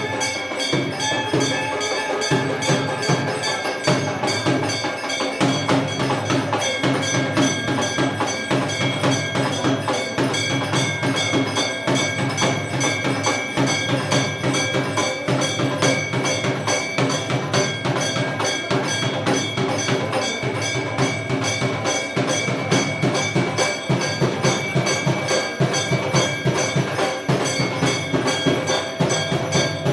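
Hindu temple aarti percussion: bells and gongs struck rapidly and without pause, with steady ringing bell tones over a low drum beat.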